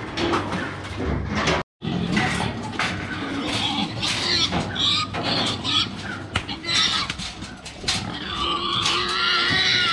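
Domestic pigs squealing as a pig is pushed into a steel cage crate, with repeated knocks and rattles of the metal crate. The squealing is loudest near the end.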